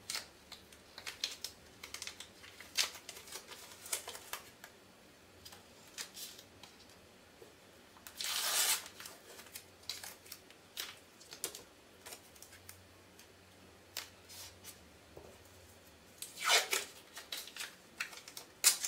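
Blue painter's tape being handled and pressed onto a panel, with scattered small crackles and ticks. Twice the tape rips, about eight seconds in and again near the end, as strips are torn off.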